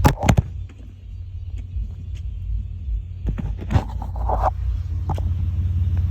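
2008 Chevy Impala LS's 3.5-litre V6 running through a Flowmaster muffler: a steady deep exhaust rumble, with a few sharp pops in the first half second and more scattered ones later.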